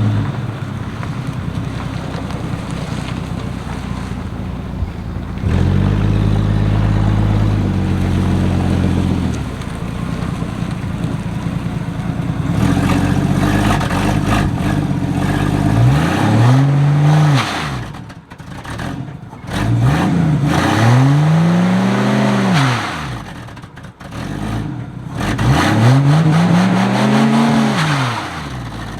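Six-cylinder engine running, then revved three times, each rev climbing and falling back in pitch, as a burnout is attempted; the burnout comes to little.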